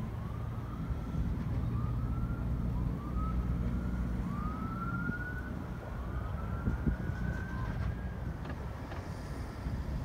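Low, steady engine rumble from the snow-plowing machinery. Over it, a high whine rises in pitch five times, each rise a little longer than the last, and stops near the end.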